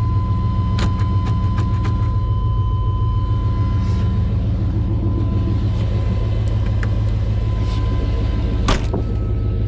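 A custom OBS Chevy pickup's engine idles with a steady deep rumble, just after being started. A few light clicks come in the first two seconds, and there is a sharp knock near the end.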